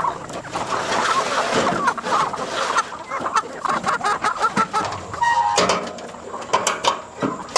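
A group of chickens clucking, many short calls overlapping, with a few sharp knocks in the later seconds.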